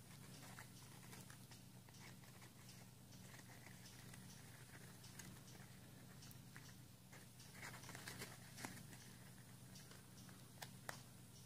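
Faint rustling and crinkling of folded origami paper being handled and fitted together, with a few sharper clicks in the second half, over a steady low hum.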